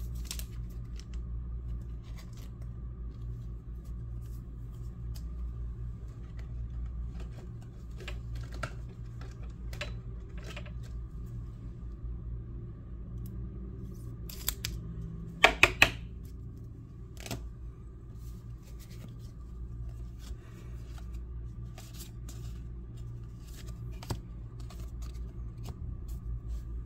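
Trading cards being handled and flipped through on a stack: scattered light clicks and taps, with a quick run of sharper snaps a little past halfway, over a steady low hum.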